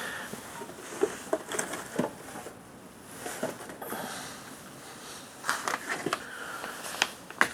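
Someone rummaging through a cupboard for packets of pancake mix: packages rustling, and items clicking and knocking as they are moved. The taps are scattered, with a busier cluster about two-thirds of the way through and two sharp clicks near the end.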